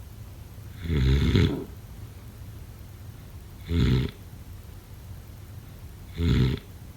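Snoring: three short snores at a steady pace, about two and a half seconds apart, each a low buzzing rattle lasting under a second, over a faint steady low hum.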